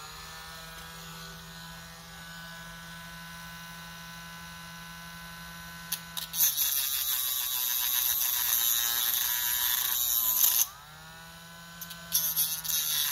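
Dremel rotary tool with a small cutoff wheel running at a steady high whine, then grinding into a carburetor screw head twice: a harsh hiss for about four seconds from midway, a dip and recovery of motor speed, then a second cut near the end. The cutting opens up the broken-off screw heads of a non-rebuildable Chinese PZ27 carburetor so that they can be unscrewed.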